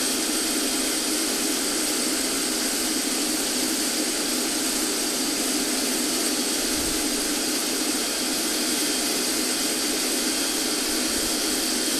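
Small turret lathe running at about 700 rpm, driven by a swimming-pool pump motor through a little Yamaha three-speed motorbike gearbox, while a 3/16-inch drill bores into brass. A steady machine whir with a thin high whine, holding its speed under the cut.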